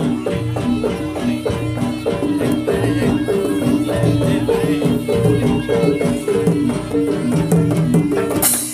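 Live jaranan gamelan music: metallophones play a quick repeating pattern of short notes over drumming. A sharp, noisy crack cuts in near the end.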